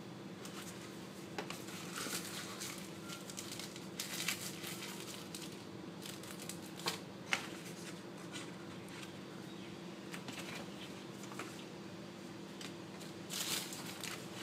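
Cardboard smartphone box insert and paper leaflets being handled: scattered rustles and small taps, heaviest around four seconds in and near the end, over a steady low hum.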